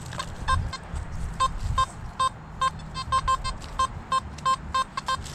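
Metal detector giving a string of short, same-pitched electronic beeps at irregular intervals as the coil is swept over targets.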